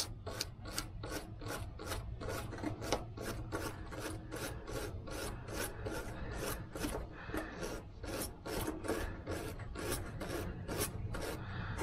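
A small brush scrubbing old grease out of a KitchenAid mixer part wet with brake cleaner, in quick back-and-forth scraping strokes, about three a second.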